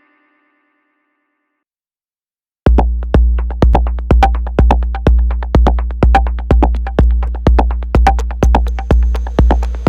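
A pause of about two and a half seconds, then an electronic four-on-the-floor drum-machine beat starts: a kick drum about twice a second with hi-hat ticks over a held synth bass note.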